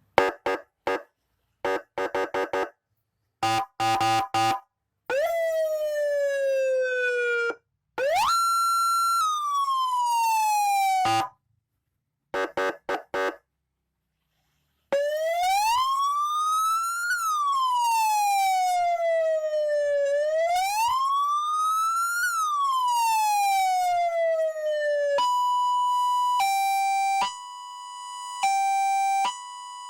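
200-watt CJB police-escort siren module played through a black iron horn speaker, stepping through its tones. It opens with short chopped bursts, then gives falling and rising sweeps and a slow wail that rises and falls twice. For the last few seconds it switches to a quick two-tone hi-lo alternation.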